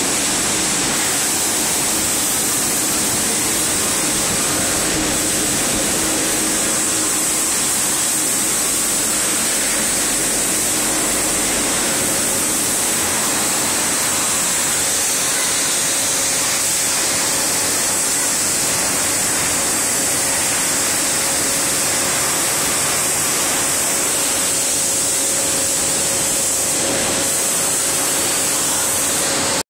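Woodtech MB 1400 R4 rotary brush sanding machine running: an even, unbroken rushing noise from its spinning sanding brushes and motors, with a high hiss and a faint steady hum.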